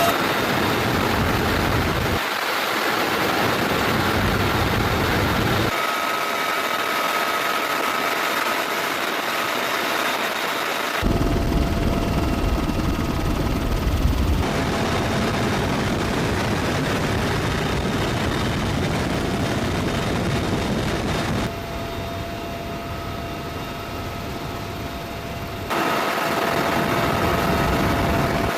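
Steady, loud mechanical running noise, like an engine or aircraft, in several spliced stretches that change suddenly from one to the next.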